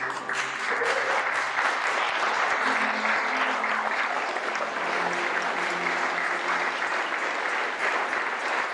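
Audience applauding, a dense, even clapping that begins right at the start and holds steady, with a few voices faintly under it about three seconds in.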